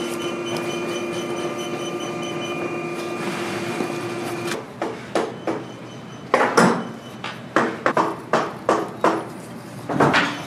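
An industrial sewing machine's motor hums steadily and cuts off about four and a half seconds in. After that comes a run of about a dozen irregular sharp knocks and taps.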